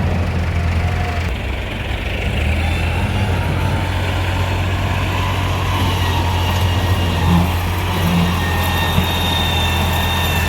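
Heavy diesel machinery engines running steadily at a constant low hum, with a faint high whine joining about halfway through.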